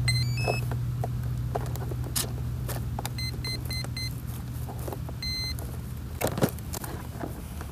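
Electronic beeps: a short stepped beep tune, then four short beeps about a quarter second apart, then one longer beep. Under them runs a low steady hum that slowly fades, with handling clicks and a knock near the end.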